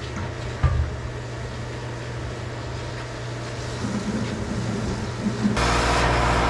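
Steady machine hum with one metal clunk about a second in as the steel pile-repair sleeve is handled into place. Near the end it cuts to the louder, steady running of the grout pump's engine.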